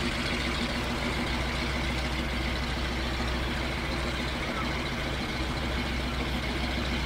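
Single-engine floatplane's propeller engine droning steadily as the plane runs across the water on its floats.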